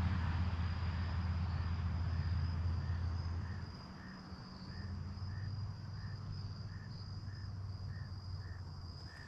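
Insects trilling steadily at a high pitch, with a short chirp repeating about every half second. A low rumble of road traffic is louder at the start and drops away after about three and a half seconds.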